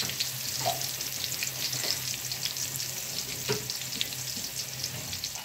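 Hot oil sizzling and crackling in a metal wok with whole dried red chillies and bay leaves frying in it, with a few louder pops.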